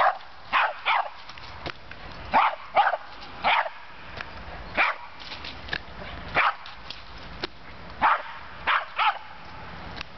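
Small black pinscher barking in short, playful barks while playing with balloons, about eleven barks, some single and some in quick pairs.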